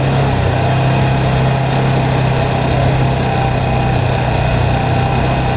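ATV engine running steadily while the quad rides along a sandy dirt trail.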